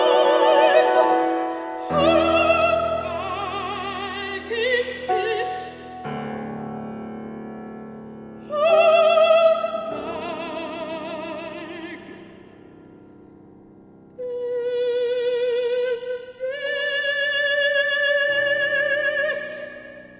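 Contralto voice singing a classical song with wide vibrato, accompanied by a grand piano. Several long held notes come in the second half, and near the end the voice stops and the piano rings on alone.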